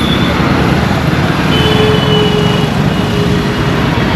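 Steady, dense rushing noise, heaviest in the low end, with faint held high tones about a second and a half in that last a couple of seconds.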